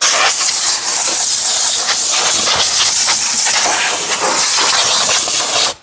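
Compressed air from an air hose blasting over the top of an engine to blow off dirt: a loud, steady hiss that cuts off suddenly near the end.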